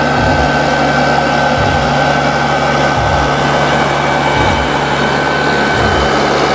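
Log skidder's diesel engine running steadily under load while descending a slope, with a steady high whine over it and a low pulse repeating about every second and a half.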